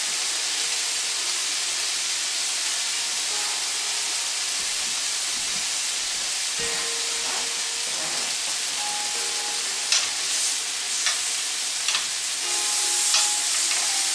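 Steak pieces sizzling steadily in a hot grill pan. From about ten seconds in, metal tongs click against the pan a few times as the meat is turned.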